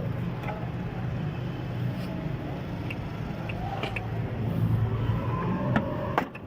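Steady low rumble of nearby motor vehicles, with a few faint clicks, dropping off suddenly near the end.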